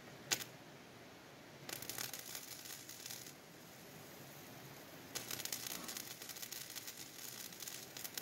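Electric arc welder crackling in two welds on a metal post, the first about a second and a half long, the second starting about five seconds in; a single click comes just before the first.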